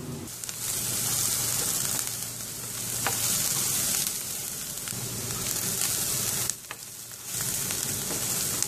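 Chopped onions, green chillies and ginger sizzling in hot coconut oil in a pan while being stirred with a spatula, with a few sharp spatula taps. The sizzle drops for a moment about two-thirds of the way through. The onions are in the middle of being sautéed until soft.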